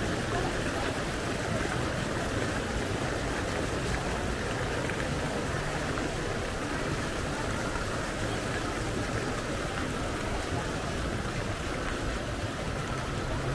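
Steady rushing outdoor background noise, even and unbroken, with no distinct events standing out.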